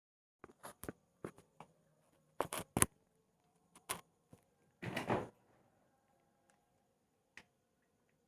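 Scattered sharp clicks and knocks in a small enclosed space, several close together around two and a half seconds in, followed by a brief rustling burst about five seconds in.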